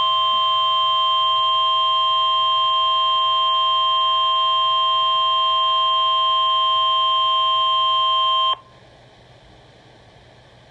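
NOAA Weather Radio attention tone: one steady 1050 Hz beep that cuts off suddenly about eight and a half seconds in. It is the alert signal sounded ahead of a warning message.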